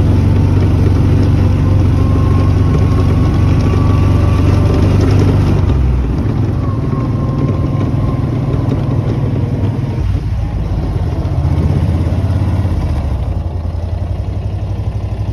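Gator utility vehicle's engine running steadily while it tows a rider on a rope, with the rumble of the ride over rough grass; the engine note shifts about six seconds in.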